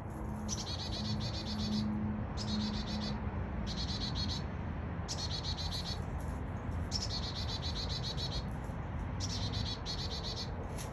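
Chickadee calling in repeated bouts of fast, high chattering notes, about seven bouts each roughly a second long with short pauses between.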